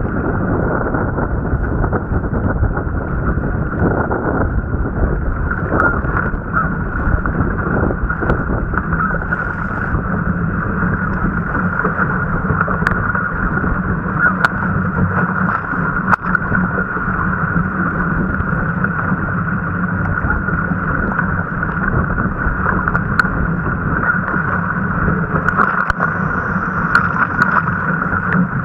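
Steady, muffled rush of wind and water on a camera mounted on a surfski being paddled through choppy waves, with a few sharp ticks scattered through it.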